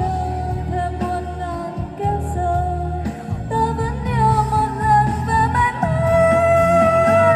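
A woman singing into a microphone over amplified backing music with a steady bass line. She holds one long note starting about six seconds in.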